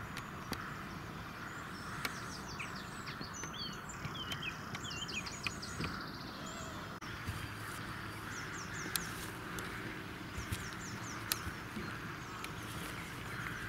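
Outdoor ambience: a steady background rumble with small birds chirping in quick runs of short notes, and a few sharp isolated clicks or taps.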